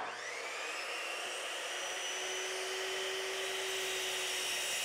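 Chop saw motor spinning up, its whine rising briefly, then running steadily as the blade is brought down into an 80/20 aluminum extrusion; a lower steady tone joins about two seconds in, and the sound cuts off suddenly near the end.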